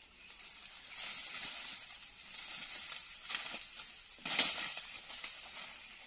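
Rustling and crunching of dry leaf litter and twigs underfoot as someone pushes through forest undergrowth, in uneven swells, with a sharper crackle of dry leaves a little past the middle.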